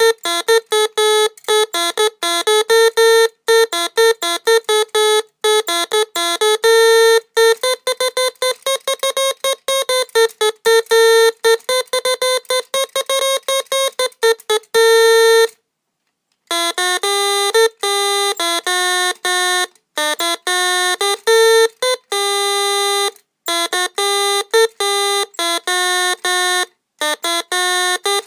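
NE555 timer electronic organ playing a tune: a run of single pitched electronic notes, one after another with short gaps, stopping for about a second halfway through before the notes resume.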